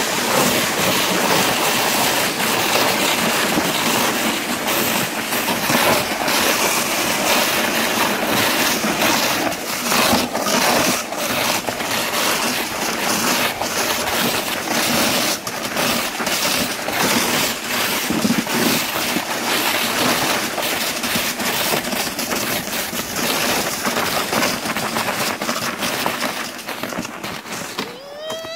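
Sled sliding fast over packed snow: a continuous scraping hiss from the runners, with many small knocks and rattles from bumps in the snow. It fades as the sled slows to a stop near the end.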